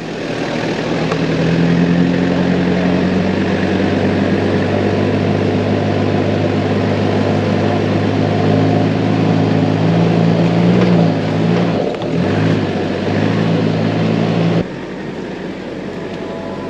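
Off-road vehicle's engine running steadily under load on a dirt track. Its pitch rises over the first couple of seconds and then holds, with a brief waver about eleven to twelve seconds in. It cuts off suddenly near the end, leaving a quieter even sound.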